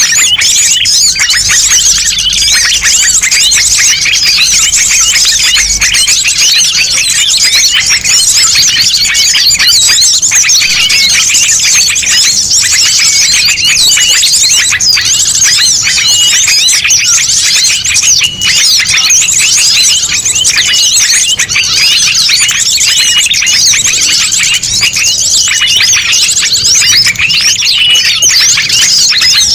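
Dense, loud chorus of many small songbirds chirping over one another without pause. It is a mixed recording of small birds, played as a lure to call wild birds in.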